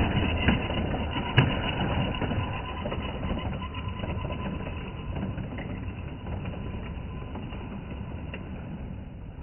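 Lego train's small electric motor whirring and its plastic wheels clattering on plastic track, fading steadily as the train pulls away, with one sharp click about a second and a half in.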